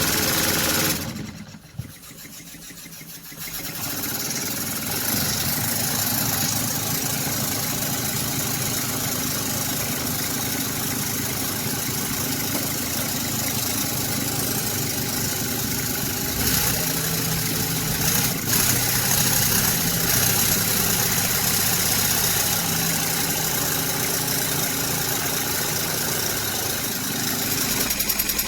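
Restored miniature steam engine running steadily, with hiss up high; the sound drops away about a second in and picks back up by about four seconds.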